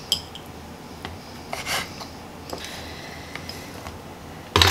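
A bench scraper scraping across a wooden cutting board as shredded cooked chicken is swept into a ceramic bowl, with light ticks and rubbing, and one sharp knock near the end.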